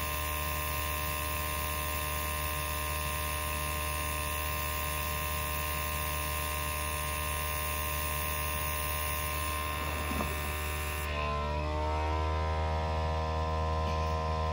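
Small airbrush air compressor humming steadily, with the hiss of air blowing from the airbrush until about eleven seconds in. Then the hiss stops and the compressor's hum changes pitch and gets slightly louder.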